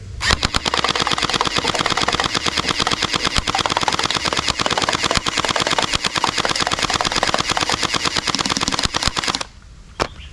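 Toy Thompson machine gun firing a long rapid burst of clicking gunfire sound, which stops abruptly near the end.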